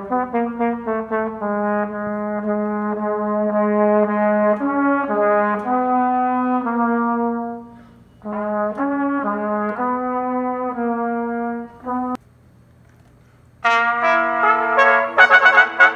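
A trumpet ensemble with flugelhorns plays a slow passage: repeated notes at first, then long held chords, with a brief gap in the middle. It breaks off about twelve seconds in, and after a moment of near silence another trumpet ensemble comes in louder and brighter.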